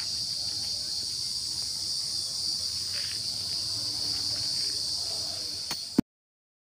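Steady, high-pitched chorus of insects buzzing in the scrub, which cuts off suddenly with a sharp click near the end.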